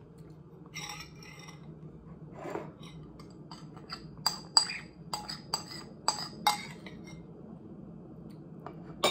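A metal spoon scraping and clinking inside a ceramic bowl, scooping out the last of the coconut-milk sauce. A quick run of about a dozen light clinks comes in the middle, with fainter scuffs before it.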